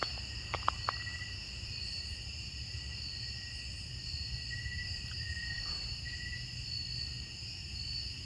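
Night insect chorus: crickets trilling steadily at several high pitches, one of them chirping on and off at a lower pitch. A steady low hum runs underneath, and a few soft clicks come just under a second in.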